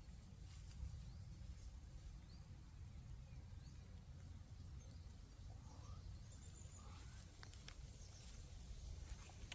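Faint outdoor ambience: a steady low rumble with a few soft clicks and scattered faint short chirps, including two short rising calls in the second half.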